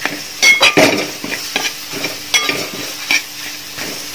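Metal spoon scraping and clinking against a metal kadai as mashed boiled potato is stirred into frying onion masala, several strokes with the loudest about half a second to a second in, over a steady sizzle of the hot oil.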